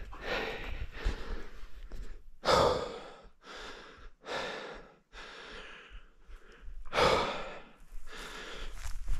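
A person breathing heavily close to the microphone: a string of long, noisy breaths in and out, the loudest two about two and a half seconds in and at seven seconds.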